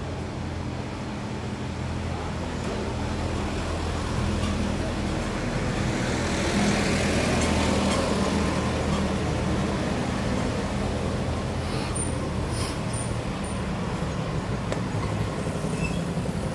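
Street traffic: a motor vehicle engine running steadily, with the noise swelling as a vehicle passes about halfway through.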